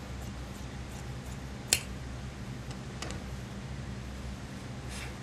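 Large tailor's shears cutting suit fabric, with one sharp click about a second and a half in and two fainter clicks later, over a steady low hum.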